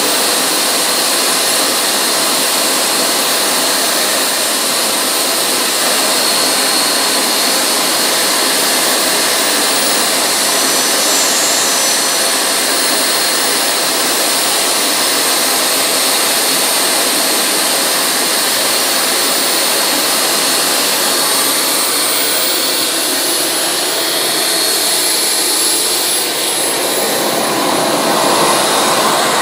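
Twin JetCentral Super Eagle model turbine engines of a large RC F-4 Phantom running steadily: a loud rushing hiss with a high, steady turbine whine. Near the end the sound changes as the jet rolls away.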